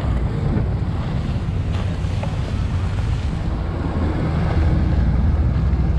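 Wind rumbling on the microphone over motorboat engines and choppy water, as a rigid inflatable boat with twin Yamaha outboard motors passes close by.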